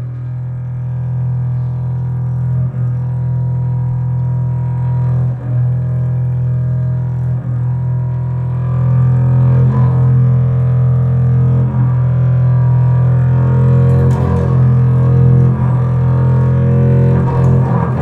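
Double bass bowed on a sustained low note, the bow changing direction every two to three seconds. It grows louder and brighter about halfway through.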